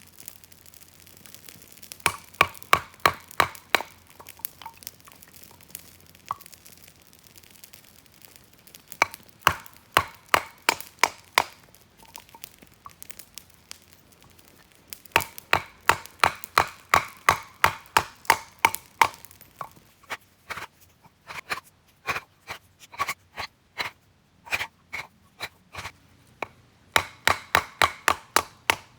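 Quick runs of sharp chopping strikes on wood, about four or five a second, in bursts of a few seconds with short pauses between: a hatchet cutting small firewood.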